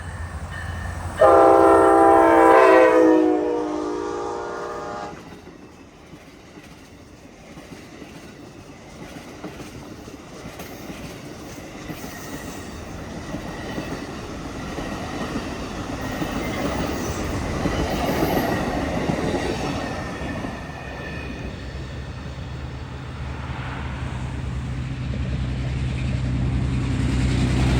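Amtrak train's Charger locomotive sounding its chime horn in one long chord blast for about four seconds, starting suddenly about a second in. Then the slow-moving passenger train rolls past with rumbling and clickety-clack of wheels over the rail joints, swelling to its loudest around two-thirds of the way through.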